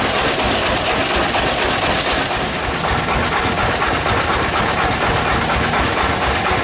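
Band sawmill's engine and machinery running steadily with a dense, even noise.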